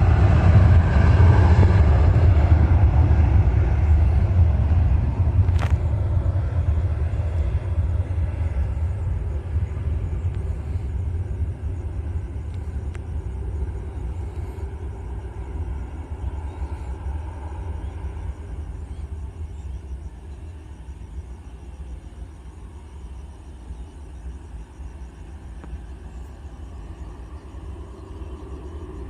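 Sriwijaya Air jet airliner's engines, a deep rumble that fades steadily as the plane moves away after takeoff.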